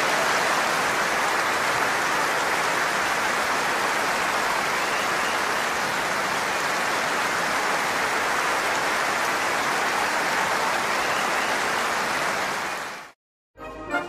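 Large concert audience applauding steadily, a dense, even sound of many hands clapping that cuts off abruptly near the end.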